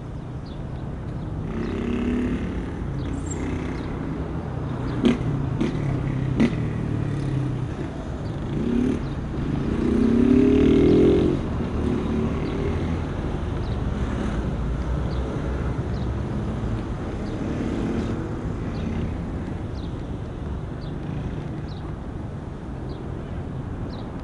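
Outdoor ambience with an engine running, rising in pitch and at its loudest around ten to eleven seconds in. Two sharp knocks come about five and six and a half seconds in.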